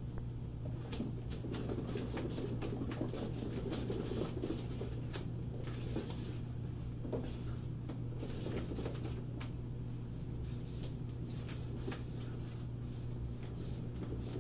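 A cat running and pouncing in a One Fast Cat exercise wheel: irregular pattering of paws and sharp clicks of claws on the wheel's plastic track, over a steady low hum.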